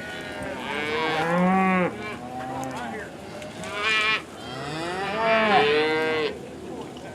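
Cattle mooing: three long calls, loudest about a second in and again around five to six seconds, with a shorter one between them that partly overlaps the third.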